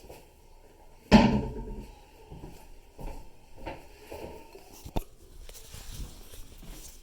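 Handling knocks: one loud clunk about a second in that rings briefly, then lighter knocks and rattles, with a sharp click near the five-second mark.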